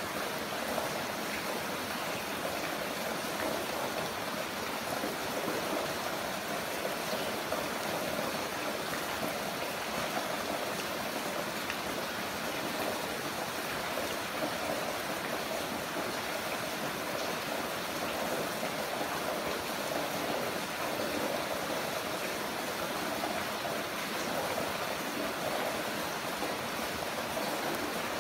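Heavy rain falling steadily, an even hiss and patter that does not change.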